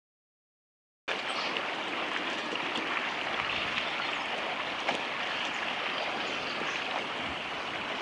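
Steady rush of a shallow river flowing, cutting in abruptly about a second in.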